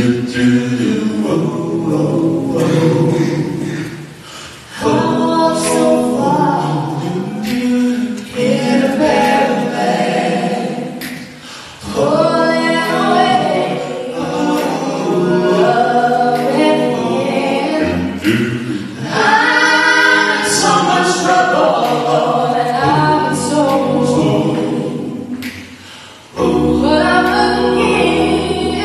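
Vocal quartet of one woman and three men singing in close harmony, a cappella, through microphones, in long phrases with brief pauses between them. A deep bass note enters near the end.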